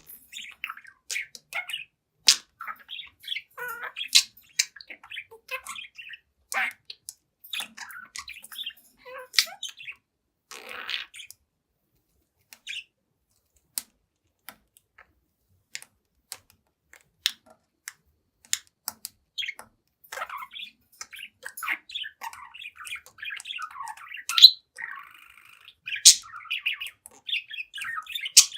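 Young budgerigar chattering: a stream of short chirps and warbles mixed with sharp clicks. It falls mostly quiet for several seconds midway, then chatters densely again toward the end.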